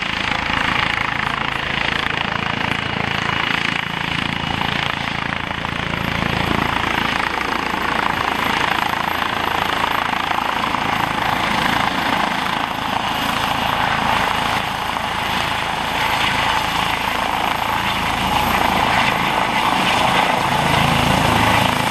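Eurocopter EC135 P2 helicopter hovering low: the steady, loud noise of its turbines and rotors, growing slightly louder near the end.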